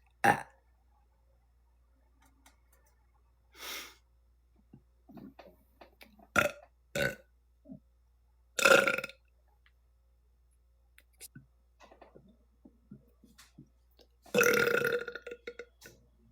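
A woman burping repeatedly: a string of short burps, a louder one about nine seconds in, and a long drawn-out burp near the end.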